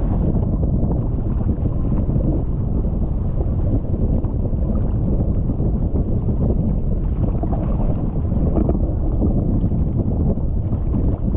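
Steady rush of wind buffeting the microphone of a camera mounted on a windfoil rig, mixed with the hiss and splash of water spray from the foil cutting through the water.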